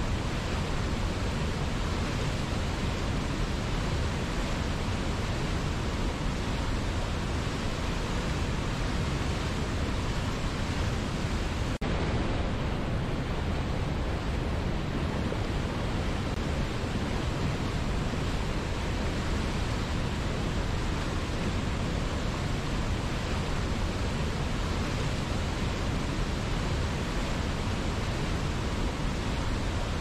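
Mountain river rapids and waterfall rushing: a steady, even water noise with no let-up, with a split-second dip about twelve seconds in.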